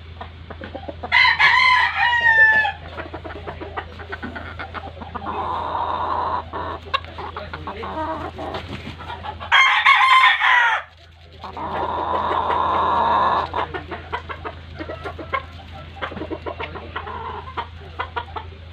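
Rooster crowing twice, once about a second in and again near the middle, each crow short and loud, with clucking and small clicks between.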